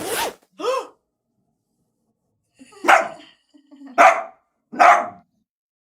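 A dog barking: two short yips at the start, then three loud barks about a second apart.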